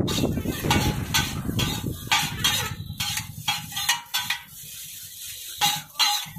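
Metal spatula and ladle scraping and clanking on a large flat iron griddle as chowmein noodles are tossed and stir-fried. The strokes come in a quick run, about two a second, with a short lull about four seconds in.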